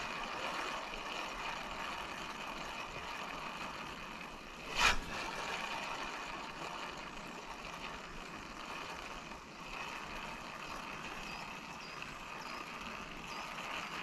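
Steady rush of flowing river water, with one short, louder knock about five seconds in.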